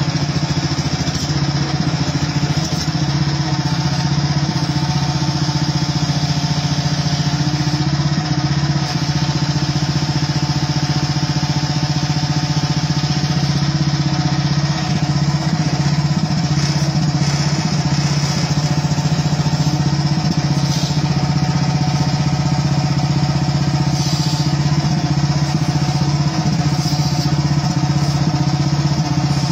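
HighTop HT10 mini excavator's engine running steadily at a constant speed while the machine digs.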